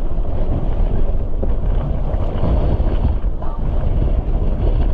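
Gale-force wind buffeting the microphone aboard a sailboat under way, a steady heavy rumble, with the rush of the sea beneath it.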